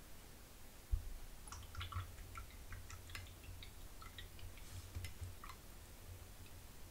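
Light scattered clicks and taps of watercolour painting: a paintbrush being rinsed in a glass of water and tapping against it, and small metal paint pans and tins being handled on a cutting mat. A single sharp knock comes about a second in, over a low steady hum.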